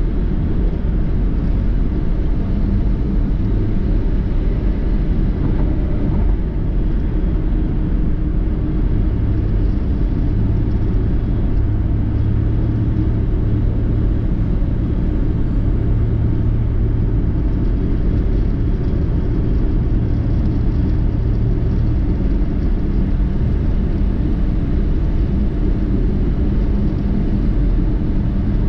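A car driving, with steady road rumble. A low steady hum comes in about ten seconds in and fades out after about twenty seconds.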